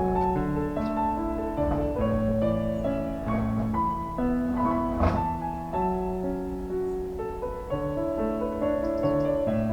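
Slow, calm solo piano music playing as a soundtrack, with held notes overlapping one another. A short, sharp click about five seconds in.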